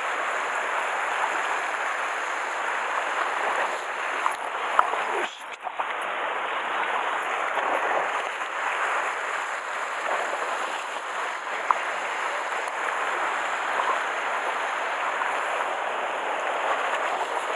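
Sea surf washing and splashing against a rocky shore, a steady hiss of moving water. There is a brief dip about five seconds in and a couple of sharp clicks.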